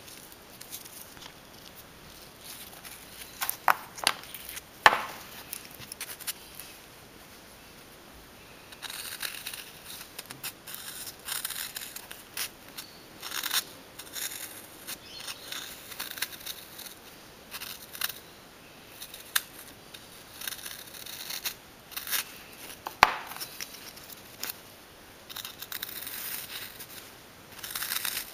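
A pointed metal tool scratching and scraping into soft, chalky cuttlefish bone in uneven rasping strokes, carving channels into a ring casting mould. A few sharp clicks come about four to five seconds in, and one more later.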